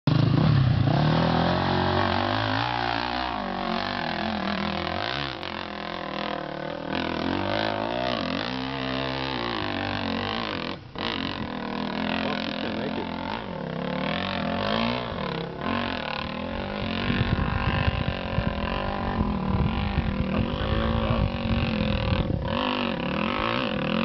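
Distant motocross dirt bike engine working hard on a steep hill climb, its revs rising and falling again and again, with a brief drop about halfway through.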